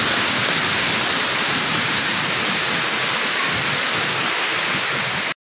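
Steady rushing of a fast-flowing stream, an even wash of water noise that cuts off abruptly near the end.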